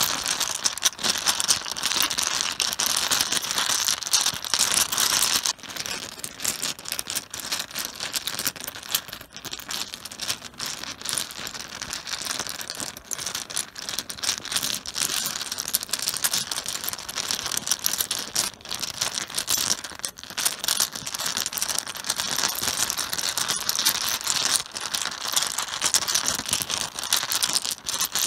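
Mahjong tiles clattering against each other on a cloth-covered table: a continuous, dense stream of small hard clicks and knocks, softened by the cloth.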